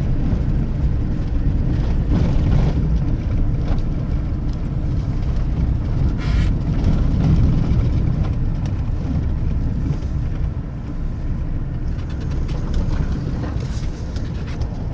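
Vehicle driving: a steady low engine and road rumble.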